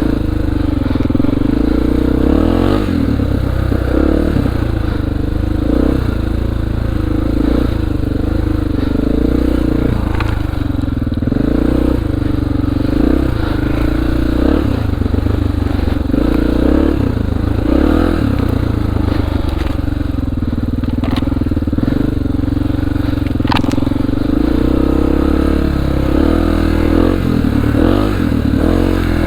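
2002 Honda XR400R's single-cylinder four-stroke engine running, its pitch rising and dipping every second or two as the throttle is worked.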